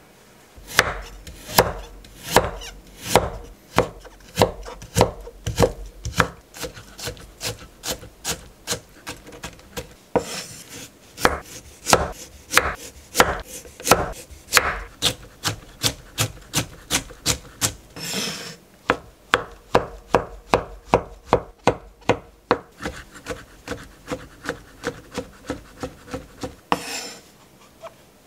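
Cleaver-style kitchen knife chopping carrots and mushrooms on a wooden cutting board: a steady run of sharp knife strikes on the board that quickens after the middle. A few short scraping sounds come between the runs of strokes.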